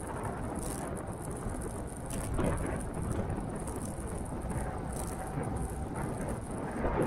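Wind rushing over the microphone and tyre rumble from an electric bike riding on a road, with a couple of small bumps or rattles about two and a half seconds in and near the end.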